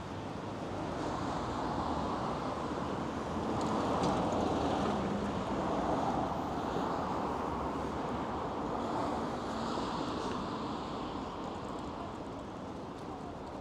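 Street traffic passing: a steady wash of vehicle noise that swells over several seconds to a peak around the middle and fades away again toward the end.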